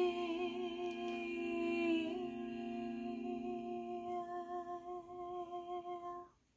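A woman's singing voice holding the long final note of the song with a light vibrato, growing softer after about two seconds and cutting off shortly before the end.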